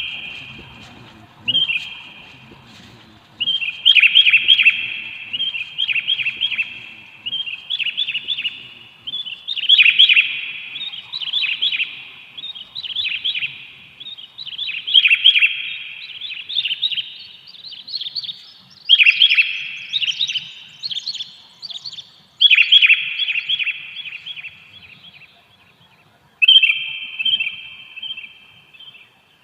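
Sooty-headed bulbuls calling: a rapid run of loud, short chattering phrases, one after another with brief gaps.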